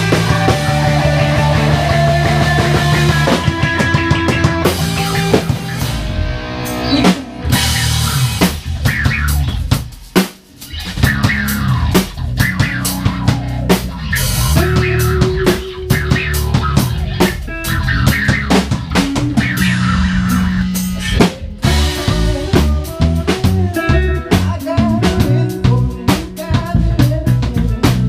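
A band playing loud blues rock: drum kit with snare and bass drum under electric guitar and bass. The music drops out briefly about ten seconds in and changes abruptly about twenty-one seconds in.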